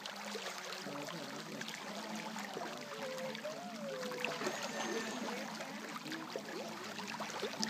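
Swimming-pool water lapping and trickling: a steady watery noise with many small splashes and drips.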